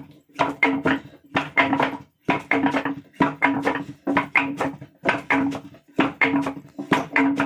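Music with a steady, repeating beat: a loud group of strokes with a pitched tone about once a second.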